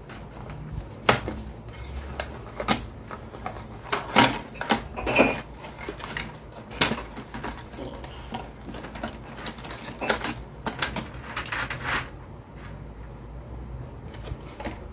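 Cardboard box being opened by hand: irregular clicks, taps and rustles as the end flap is worked open and headphones with their cord are taken out.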